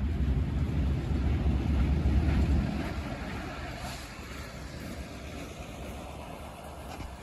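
EMD diesel switcher locomotive rolling past at close range, its engine giving a deep rumble. The rumble is loudest for the first two or three seconds, then fades as the locomotive moves on.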